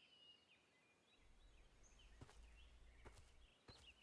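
Near silence: faint outdoor ambience with small birds chirping, and three faint clicks in the second half.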